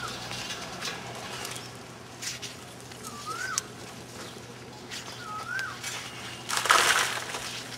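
Lumps of coal knocking and scraping as they are picked up and loaded by hand into wicker baskets, with a louder rush of coal near the end. A bird gives a short rising-and-falling whistle about every two and a half seconds.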